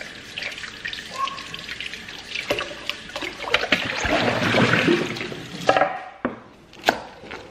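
Kitchen faucet running into a stainless steel sink as bok choy is rinsed under the stream, the splashing heaviest a little past the middle. A couple of sharp knocks follow near the end.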